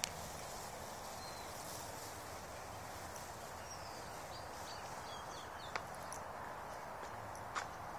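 Outdoor ambience: a steady hiss, with a few faint short bird chirps in the middle and three sharp clicks, one at the start, one about three-quarters through and one near the end.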